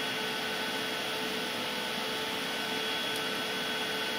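EMotorWerks SmartCharge-12000 EV charger running steadily under light load, its cooling fan blowing with a constant whine of several steady tones.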